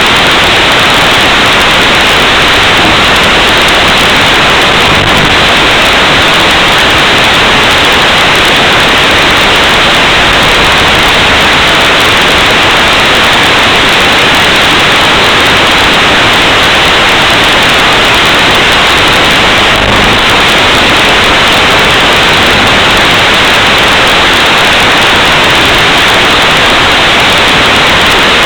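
Loud, steady static hiss with no tone or rhythm in it, the white noise of an analog FPV video feed's audio channel.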